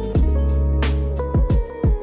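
Background music with a beat and deep bass notes that slide down in pitch.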